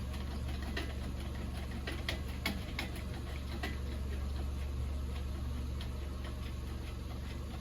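Scattered light clicks and taps at irregular intervals over a steady low hum.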